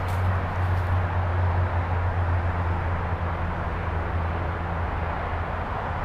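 Engine of heavy construction machinery running steadily: a constant low hum under a broad mechanical noise.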